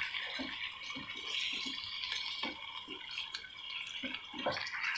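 Yogurt-marinated chicken sizzling in a pan of oil and butter while being stirred: a steady wet sizzle with soft scrapes and squelches every half second or so.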